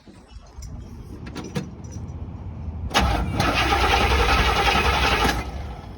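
Cadillac Coupe DeVille's V8 being cranked over, then catching suddenly about three seconds in and running loudly for a couple of seconds before dropping away near the end: its first fire after a carburetor rebuild, starting from an empty float bowl.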